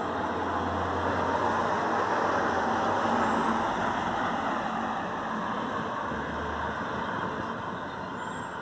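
Rolling thunder from a nearby thunderstorm, a long rumble that swells over about three seconds and then slowly dies away.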